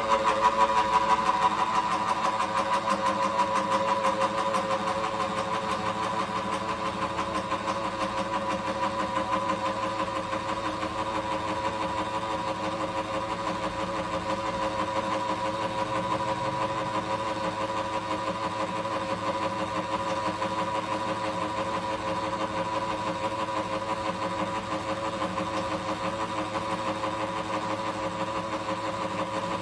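Atlas milling machine running steadily with an even whine, milling the slots in a Taig tool post; it is a little louder for the first few seconds, then settles.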